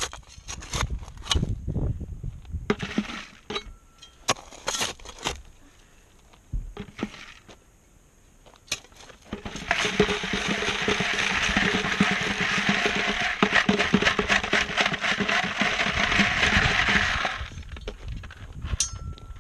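Shovel scraping and clinking in wash gravel and tipping it onto a half-inch classifier screen. About halfway through comes some eight seconds of dense, continuous rattling of gravel on the screen.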